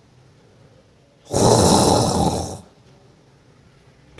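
A man's loud snore, deliberately faked while he lies awake, starting about a second in and lasting just over a second.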